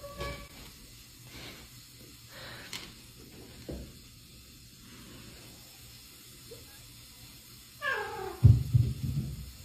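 Domestic cat meowing: a short call at the start, then a longer call that falls in pitch near the end. Right after it comes a loud low thumping clatter.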